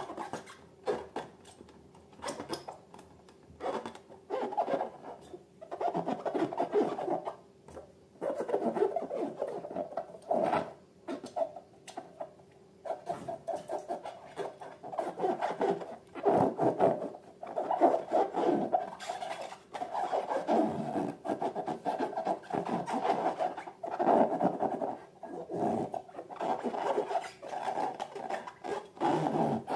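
Slime being worked by hand, giving irregular rubbing and crackling noises that come in uneven bursts of a second or two.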